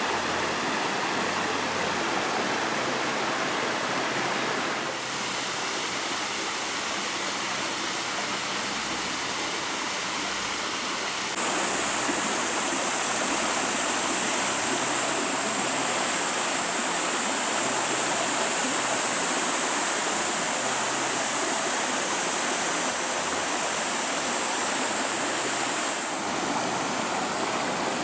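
Rushing water of a mountain valley stream, a steady dense hiss. It shifts abruptly about 5 and 11 seconds in, and again near the end. From about 11 seconds in until near the end, a steady high-pitched whine sits on top.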